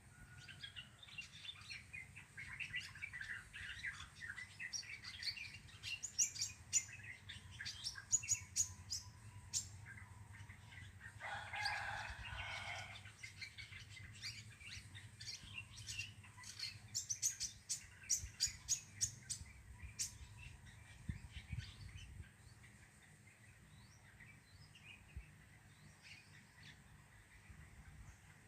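Sunbird singing: bursts of rapid, high chirps and twitters, with a harsher buzzy call about eleven seconds in, and the song thinning out over the last several seconds. A steady low hum runs underneath.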